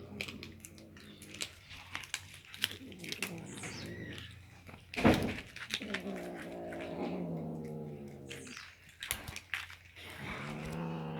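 Cats eating fish, with the small clicks and crunches of chewing throughout. A cat gives a low, drawn-out growl of about two seconds a little past halfway, and again near the end, guarding its food. A sharp knock about five seconds in is the loudest sound.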